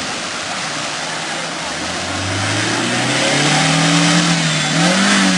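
Suzuki Jimny engine revving under load as the SUV ploughs through a muddy water hole, with muddy water churning around it. The engine note climbs from about two seconds in, holds high, then drops away near the end.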